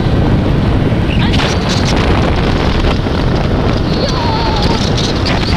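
Heavy wind buffeting the microphone, a loud steady rumbling rush.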